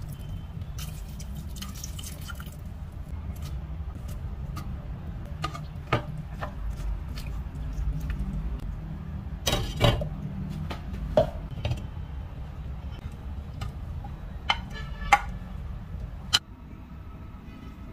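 Milk being poured into a stainless steel cooking pot of macaroni soup near the start, then a spoon stirring and knocking against the pot in a series of sharp clinks, over a steady low hum.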